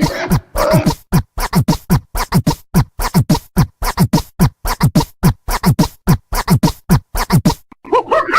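Electronic background music: a fast, steady kick-drum beat, about three to four beats a second, with record-scratch effects. It stops shortly before the end.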